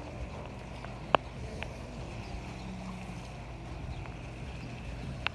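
Rain and wind buffeting the microphone as a steady low rumble, with a sharp tick about a second in and another near the end.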